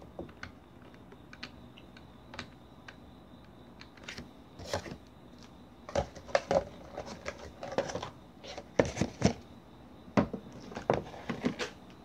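Computer keyboard being typed on: a few scattered key clicks at first, then quicker runs of keystrokes from about halfway through.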